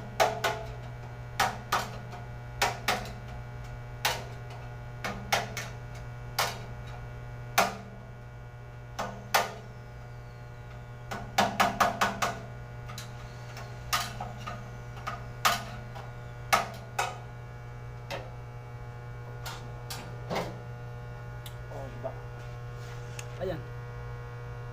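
Sharp knocks and taps at irregular intervals, sometimes three or four in quick succession, over a steady low electrical hum.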